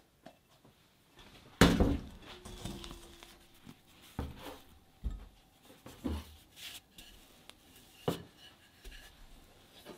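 Kitchen handling on a stainless steel counter. A glass mixing bowl clunks down hard about a second and a half in and rings briefly, followed by a scatter of softer knocks and thuds from the dough and a wooden rolling pin being set on the counter.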